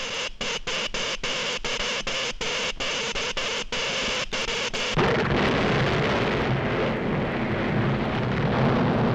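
Cartoon sound effect of electric current crackling and hissing along a cable, broken by many brief dropouts. About five seconds in it gives way suddenly to a deep, continuous earthquake rumble.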